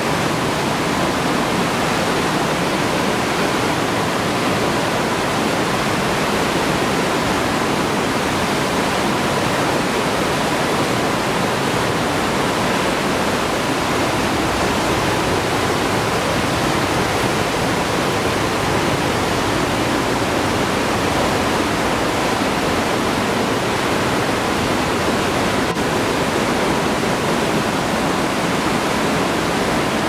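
The Hammersbach mountain torrent rushing and cascading over waterfalls in a narrow rock gorge, a steady loud roar of water.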